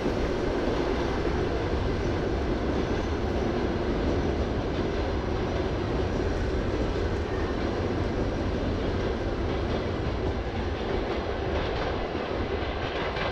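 Russian Railways passenger coaches rolling past, a steady rumble of steel wheels on the rails.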